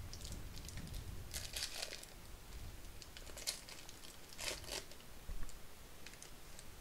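Foil wrapper of a Topps baseball card pack crinkling and tearing as it is opened, in a few short bursts.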